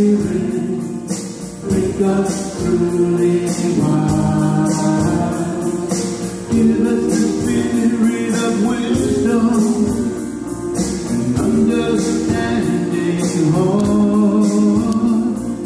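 A church choir singing a hymn over a steady rhythmic accompaniment.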